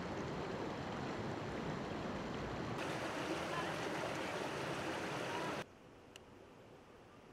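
Stream water flowing over rocks, a steady rushing hiss that cuts off abruptly about five and a half seconds in, leaving near silence.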